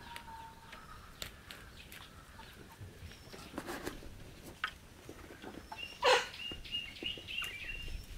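Hens feeding from a basket of azolla: scattered sharp pecking clicks and soft chicken calls. About six seconds in comes one loud, brief sound, followed by a thin, high, wavering call that lasts a couple of seconds.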